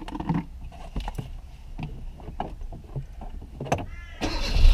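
Scattered light clicks and knocks inside the Hyundai i20, then about four seconds in its engine is started and settles into a steady low idle, started to see whether the airbag warning light goes out after a clock spring replacement.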